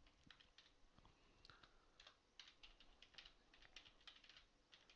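Faint keystrokes on a computer keyboard: an irregular run of light clicks as an email address is typed.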